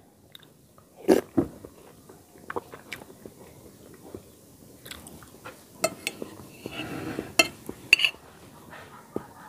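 A person eating chicken soup with a spoon: chewing, with scattered sharp clicks and taps of the spoon against the plate, the strongest about a second in and near the end.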